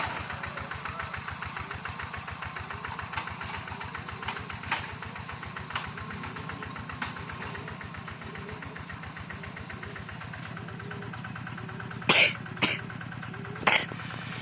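Single-cylinder diesel engine of a two-wheel paddy tractor running steadily with a rapid, even pulse while pulling a moldboard plough through soil. A few short, loud noisy bursts come near the end.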